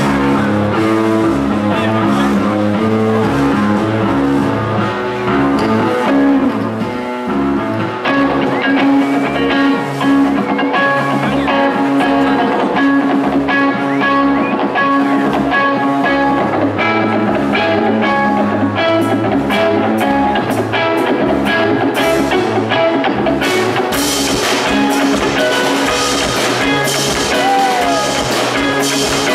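A live heavy rock band playing loudly: an electric guitar, a bass guitar and a drum kit. The drums and cymbals hit harder in the last few seconds.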